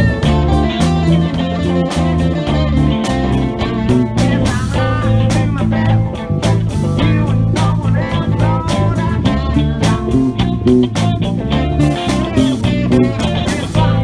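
Live rock band playing: several electric guitars over bass guitar and a drum kit keeping a steady beat.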